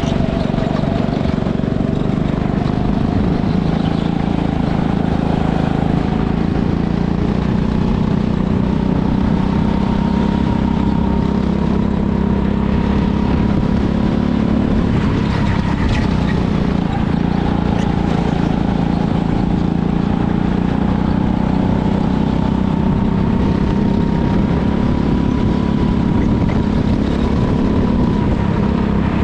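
Go-kart engine running under load, heard close up from on board the kart, its pitch dipping slightly near the start and then drifting gently up and down as the kart slows for corners and speeds up on the straights.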